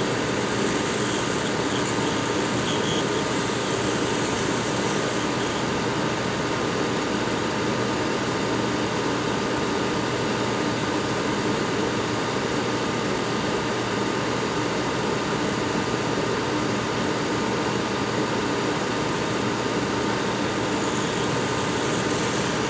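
Hot air rework station blowing a steady hiss of hot air from its nozzle onto a chip on a phone logic board, heating the solder until it melts so the chip can be lifted off.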